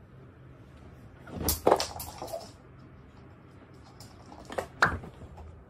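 Quiet room with two pairs of sharp knocks, about a second and a half in and again near five seconds.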